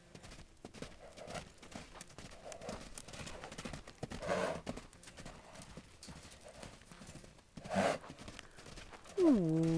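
Young horse cantering loose on sand, its hoofbeats coming as a run of faint thuds. About four and eight seconds in come two short loud bursts of noise, and near the end a loud drawn-out call that drops in pitch and then holds.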